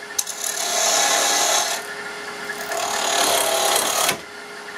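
A turning tool cuts a spinning spindle of Osage orange, a very tough wood, on a wood lathe. It makes a rushing, scraping noise of shavings being sliced off, in uneven passes, with the lathe's faint steady hum underneath. The cut falls away near the end.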